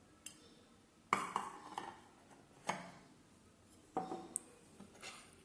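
A spoon knocking and clinking against a bowl and dishes: several separate clinks with a short ring, the loudest about a second in, near the middle, and about four seconds in.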